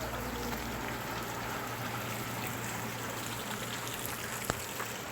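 Steady rain falling, with scattered drops ticking on nearby surfaces and one sharper drop strike about four and a half seconds in.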